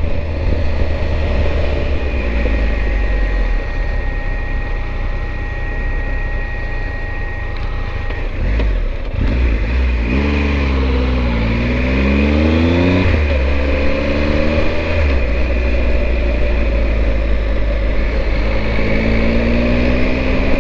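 Triumph Tiger 1200's three-cylinder engine under way on the road, with heavy wind rumble on the microphone. About halfway through the revs rise and fall with gear changes, and they climb again near the end.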